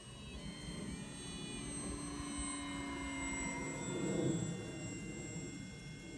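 Radio-controlled Maule model airplane's motor running, a thin high whine that shifts in pitch, over wind rumble on the microphone that is loudest about four seconds in.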